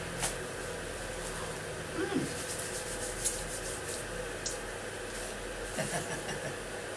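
Takeaway food packaging, a McNuggets cardboard box and its bag, rustling and crinkling in short bursts as it is handled, over a steady room hum.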